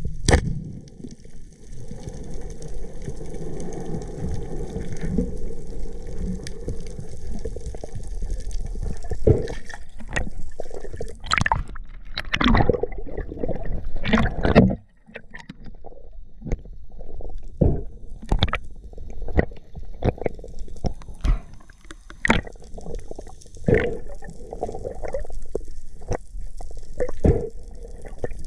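Water sloshing and gurgling close to the microphone, with many irregular clicks and knocks; the level drops suddenly for a moment about halfway through.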